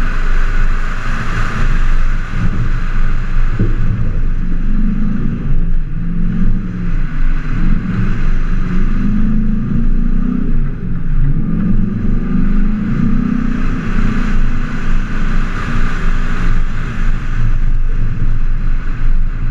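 A 4x4's engine running as the vehicle drives a sandy dirt trail, its pitch rising and falling as it speeds up and eases off, over a steady rush of wind and tyre and road rumble picked up on the hood.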